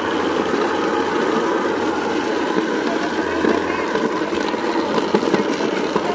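A motor engine running steadily, with indistinct voices underneath.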